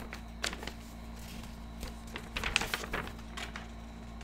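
A large folded paper poster being unfolded by hand: scattered crinkles and rustles of the paper, most of them between about two and three seconds in.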